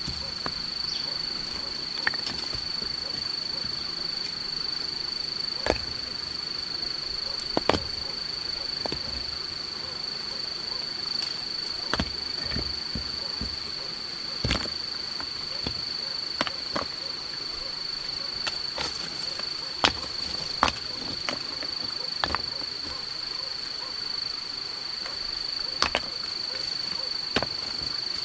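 Rocks knocking and clacking against each other, about a dozen sharp, irregular knocks as loose stones are set into a small dry-stone wall around a tree's base. Under them runs a steady, high-pitched insect drone.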